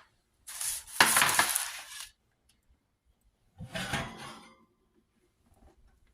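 Kitchenware being handled: two bouts of scraping and clattering, the first about half a second in and a softer one near the middle.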